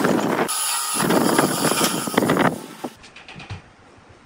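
Electric jigsaw sawing through a pine board in two spells, a short one at the start and a longer one from about one second in, dying away about three seconds in. A few faint knocks follow.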